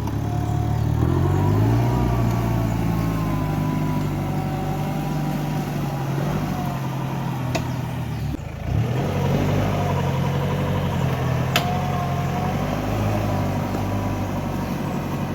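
A van's engine working hard under load as it climbs a steep dirt hill. The pitch rises and falls, and it eases off briefly about eight seconds in before picking up again. There are a couple of sharp clicks.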